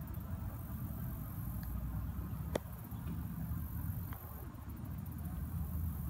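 Wind buffeting the microphone outdoors: a steady low rumble, with one short click about two and a half seconds in.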